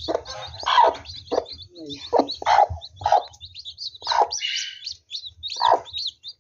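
Newly hatched chicks peeping continuously in high, quick chirps. A broody hen's short, louder clucks cut in about six times.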